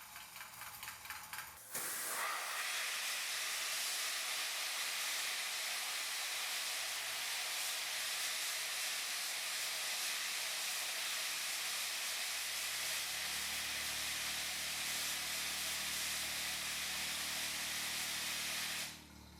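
Compressed air blasting through a handmade jet engine to spin its shaft: a loud, steady hiss that starts suddenly about two seconds in and cuts off just before the end. A low steady hum joins under the hiss for the last several seconds. Before the blast there is a faint, even ticking.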